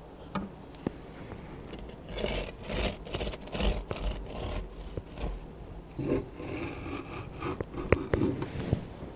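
Serrated bread knife sawing back and forth through a loaf of pumpkin bread on a wooden cutting board. A run of scraping strokes starts about two seconds in and picks up again about six seconds in, with a few sharp clicks near the end.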